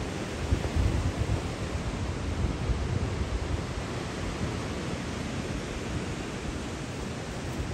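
Steady rushing noise of ocean surf and wind on a phone microphone, with irregular low buffeting gusts in the first few seconds.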